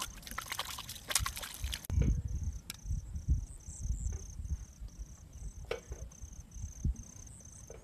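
An insect chirping steadily in the background, a high even note repeating about twice a second. In the first two seconds, water splashes as it is poured from a bottle over someone's hands.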